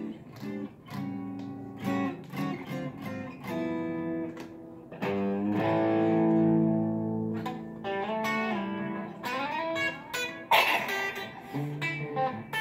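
Mahogany '69 Telecaster Thinline reissue electric guitar being played: picked single notes and chords, with a chord left ringing about five seconds in and a quick strum about ten and a half seconds in.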